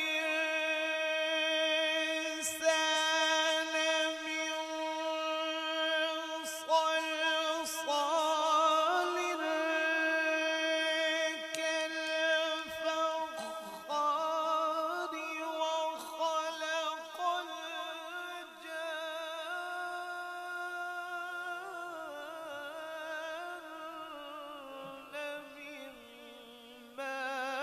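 A male qari's voice reciting the Quran in melodic tajweed style, drawing out a long phrase in sustained, wavering notes. The pitch steps lower in the last few seconds.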